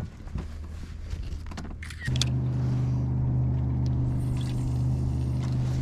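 A few light handling clicks, then about two seconds in a steady, low motor hum starts suddenly and runs on evenly.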